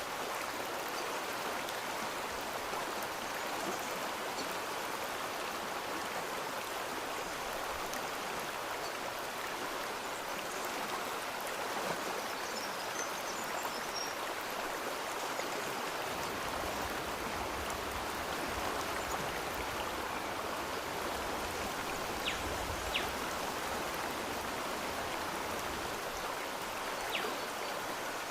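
Water of a stream rushing and burbling steadily, with a few faint ticks; a low rumble comes in about halfway through.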